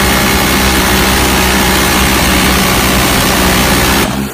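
Tripod-mounted machine gun firing one long continuous burst. The shots run together into a loud, steady buzz rather than separate reports, and it cuts off suddenly about four seconds in.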